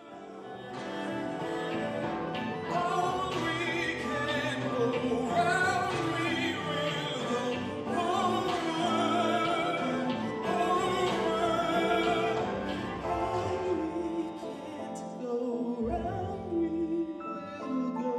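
Live score from a small chamber ensemble of cello, keyboards and flute, carrying a melody sung with strong vibrato.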